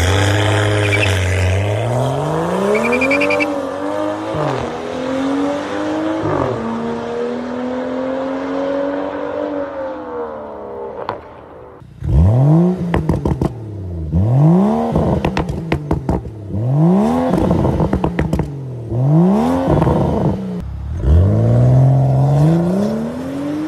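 BMW F30 3 Series exhaust with an aftermarket valved axleback and downpipes: the engine pulls away under power, its pitch climbing through a couple of upshifts, then eases off. After a cut, the parked car is given about five sharp free revs, each rising and falling quickly, with pops as the revs drop.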